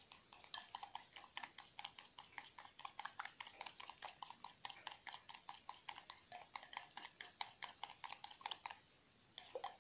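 Egg yolk, honey and oil being beaten in a small bowl: faint, quick, steady clicking of the utensil against the bowl, several strokes a second, stopping about a second before the end.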